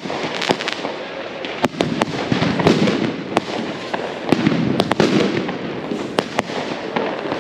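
Firecrackers going off: a string of sharp bangs at irregular intervals over a continuous crackle.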